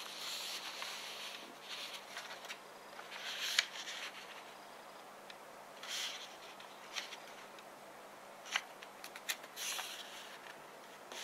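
A sheet of origami paper being folded and creased by hand: a few brief rustles as the paper is lifted and folded over, with scattered sharp little ticks as fingers press the creases flat.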